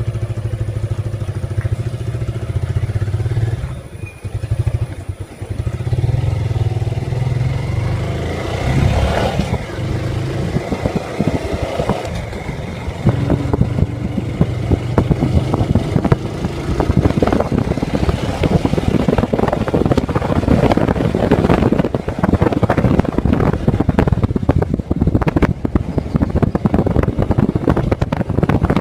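Suzuki Gixxer motorcycle's single-cylinder engine running steadily for the first several seconds, dipping briefly about four seconds in. It then gives way to a louder, rougher mix of engine and road noise with clattering as the bike is ridden.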